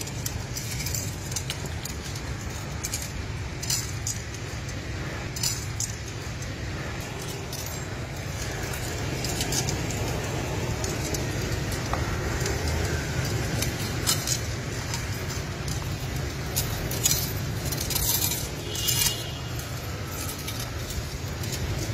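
Scattered light clinks and clicks over a steady low background rumble.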